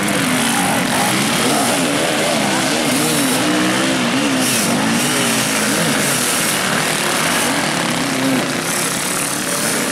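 Several enduro dirt-bike engines revving hard at once, their pitches rising and falling over one another as the bikes fight for grip in deep mud.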